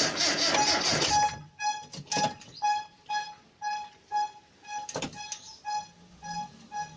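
A short electronic beep repeating evenly about twice a second. For the first second and a half it sits under a loud rattling noise, and there are brief knocks around two and five seconds in.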